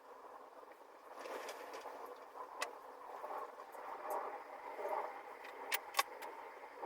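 Small metal pedal parts being handled and fitted by hand during a pedal rebuild: faint scraping and rubbing, with a few sharp metallic clicks, one early and two close together near the end.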